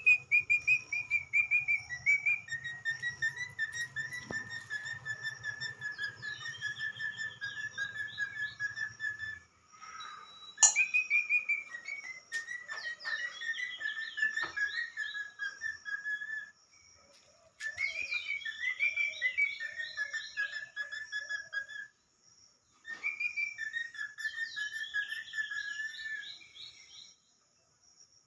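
Indian ringneck parakeet whistling a tune: a fast-pulsing whistle that drops from a higher note to a long held lower one, with quick higher twitters over it. It comes in four phrases, with short pauses about a third, three fifths and four fifths of the way through.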